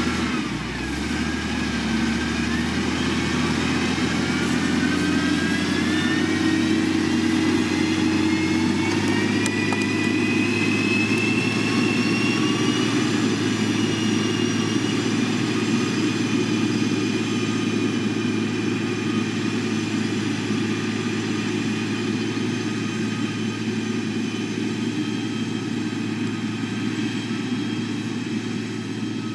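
Diesel engine of a heavy road-building machine running under load. Its pitch rises over the first dozen seconds, then holds steady over a constant low hum.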